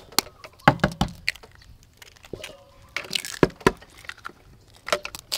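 Eggs knocked against a stainless steel bowl and their shells cracked open: a handful of sharp cracks and clicks, several coming in quick pairs.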